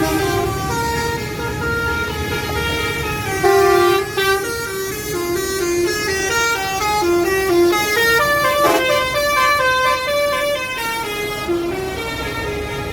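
Six-trumpet 'telolet' bus air horn playing a tune, stepping from note to note with several trumpets sounding together, over a low rumble.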